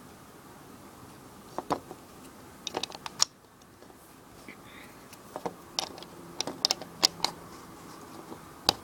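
Lego bricks clicking and clattering as they are handled and pressed together. Sharp plastic clicks come in irregular clusters, a few at a time.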